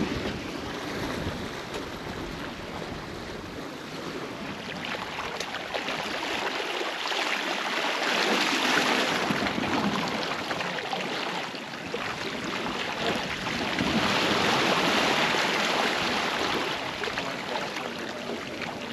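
Seawater rushing and splashing along the hull of a sailboat under way in rough, rolly seas, swelling louder twice as the boat rolls through the waves.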